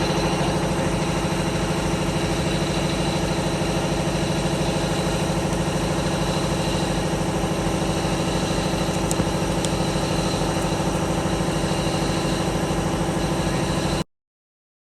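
Double-head aluminium cutting saw's motors running with the blades spinning: a steady, unchanging mechanical hum with several held tones, which cuts off suddenly near the end.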